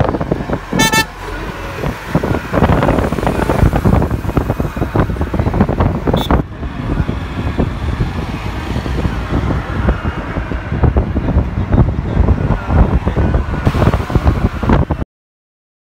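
Loud, gusting road and wind noise from a moving car, heard from inside with the side window open. A short vehicle horn toot sounds about a second in, and the sound cuts off suddenly near the end.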